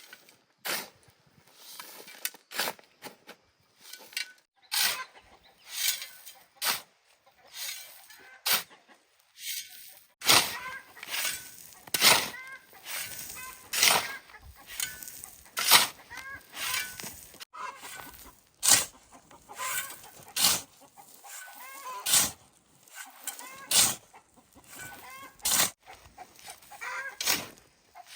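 Chickens clucking, with a quick irregular series of sharp scrapes or knocks from work going on close by.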